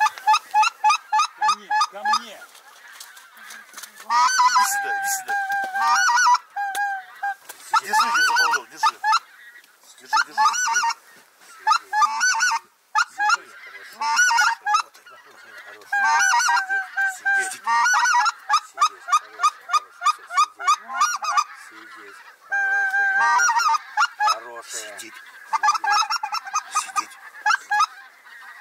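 Loud goose honking in bursts of rapid honks and clucks, some notes held, from hunters blowing goose calls to draw in a flying flock.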